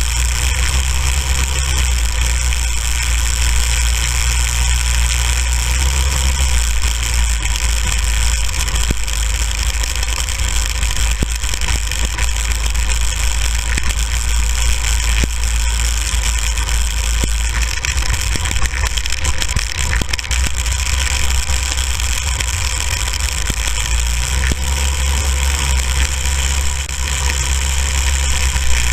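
Small go-kart engine running steadily as the kart is driven over snow, heard from the driver's helmet. The engine note is heavier for the first few seconds and again near the end.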